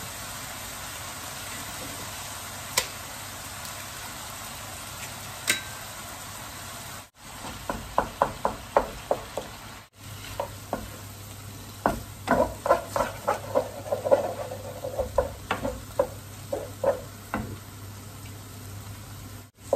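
Eggs sizzling steadily in a hot frying pan with onion, with two sharp cracks in the first half as more eggs are broken on the pan. Later a wooden spatula scrapes and taps rapidly against the pan as the eggs are scrambled.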